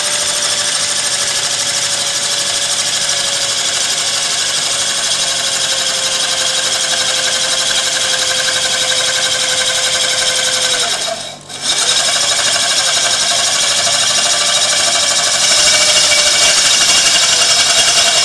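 Electric drill running steadily, driving a small prototype vertical auger conveyor that lifts sand. About eleven seconds in, the drill stops for a moment and spins back up. It grows louder for the last few seconds.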